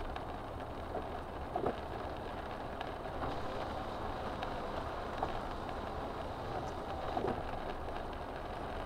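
Steady noise inside a car moving slowly through heavy rain: engine and road noise, with fine ticks of raindrops on the windshield. Two brief louder sounds come about one and a half and seven seconds in.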